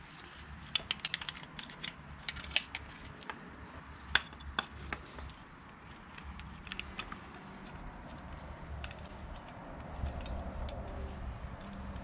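Screwdriver clicking and scraping against a motorcycle's Nissin front brake caliper as a fitting is levered off it. A quick series of sharp metal clicks and taps in the first five seconds, then quieter handling.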